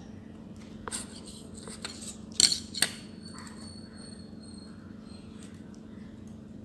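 Light metallic clicks and clinks from soldering tools being handled at the workbench during hand soldering of resistor leads, the two loudest close together about two and a half seconds in with a brief high ring, over a steady low hum.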